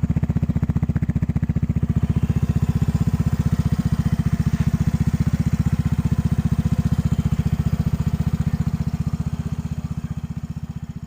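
Yamaha Mio i 125S scooter's single-cylinder engine idling steadily through a kalkal exhaust, the stock muffler with its baffles dug out, giving a loud, even, rapid exhaust thump. The sound fades away near the end.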